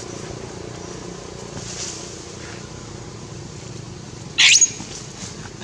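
A young long-tailed macaque gives one short, loud, high-pitched distress scream about four and a half seconds in while an adult monkey attacks and bites it. Steady low background rumble underneath.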